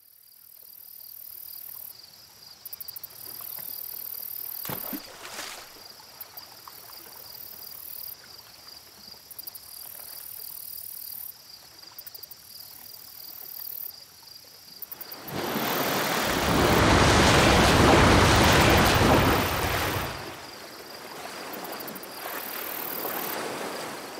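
Crickets chirring steadily in a fine, fast pulse. About two-thirds of the way in, a loud rushing noise swells up for about five seconds and then drops away.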